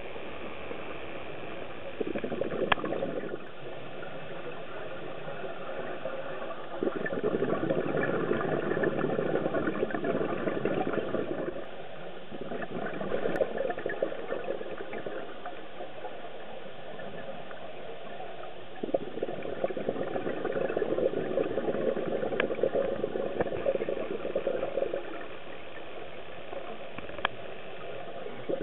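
A scuba diver's exhalations through a regulator heard underwater: several long bubbling rushes, each a few seconds long, with quieter gaps between them. Under them runs a steady hum with a faint whine.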